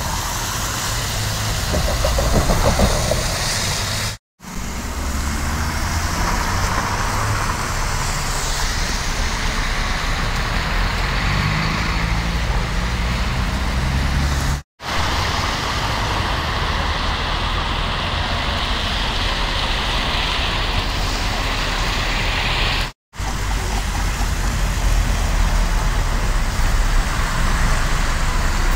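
City buses driving past on wet, slushy streets: engines running low and steady with tyre and traffic noise over them. The sound drops out briefly three times where separate clips are joined.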